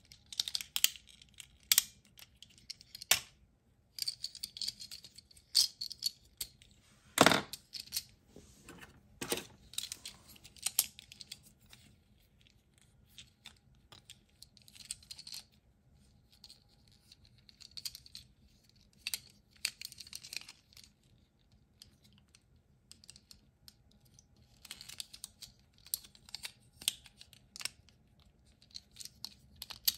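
Plastic parts of a transforming ambulance robot toy clicking and snapping as they are folded into place by hand, with light scraping between the clicks. The clicks come irregularly, the loudest about seven seconds in.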